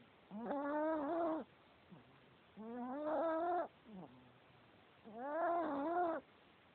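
Chihuahua snoring in its sleep: three long, high-pitched snores with a wavering tone, each about a second long and about two and a half seconds apart.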